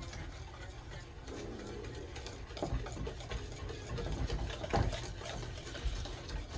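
Pancake mix and water being stirred by hand in a mixing bowl, a utensil scraping round the bowl in quick, uneven strokes.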